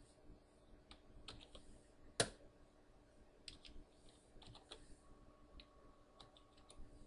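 Faint, scattered clicks of a command being typed into a computer, with one louder click about two seconds in.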